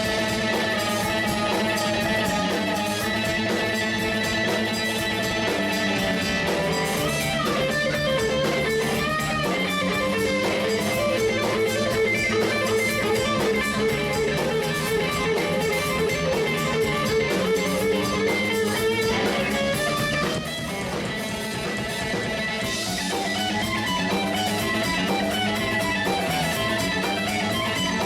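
Background rock music led by strummed electric guitar with bass.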